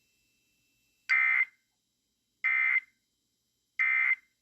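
Emergency Alert System end-of-message signal: three short, buzzy SAME digital data bursts, evenly spaced about a second and a third apart, marking the close of the alert.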